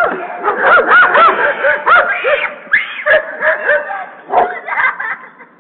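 Stray dogs barking rapidly and repeatedly at a person, in short high yelping barks about two or three a second, fading out near the end.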